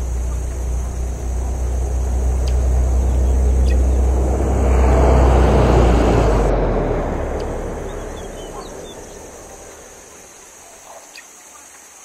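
A car going by: a low engine rumble with a rushing whoosh that builds to a peak about halfway through, then fades away. A few faint bird chirps sound here and there.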